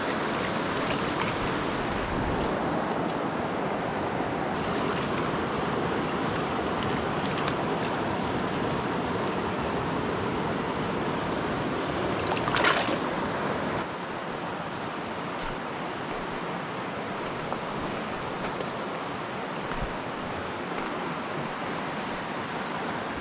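Steady rush and burble of a shallow mountain stream flowing over rocks and riffles. About halfway through, a short, louder splash sounds at the water's surface, and after it the rush is slightly quieter.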